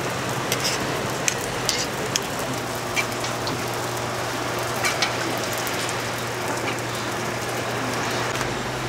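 Hotteok sizzling in oil on a flat griddle, a steady hiss over a low hum, with a few sharp clicks in the first two seconds and again about five seconds in.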